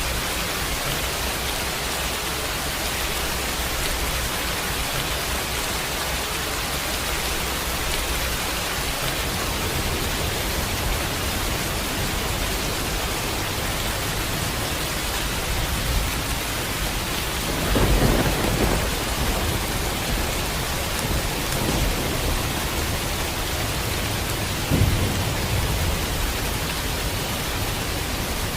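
Steady rain falling, with low rolls of thunder: a loud one about two-thirds of the way through and another a few seconds later, with fainter rumbles around them.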